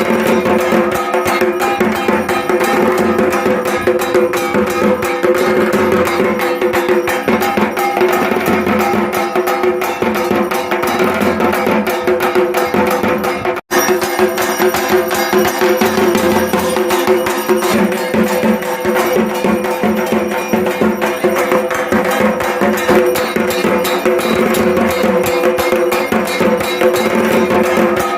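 Dhak, the large Bengali barrel drum, played with sticks in a fast, dense rhythm, with steady ringing tones sounding underneath. The sound cuts out for an instant about halfway through.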